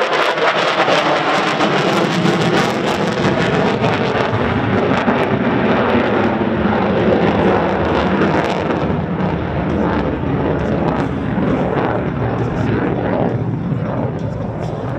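Lockheed Martin F-35B Lightning II flying a demonstration pass: the loud jet roar of its single Pratt & Whitney F135 turbofan, crackling hard in the first few seconds and easing off a little near the end as the jet draws away.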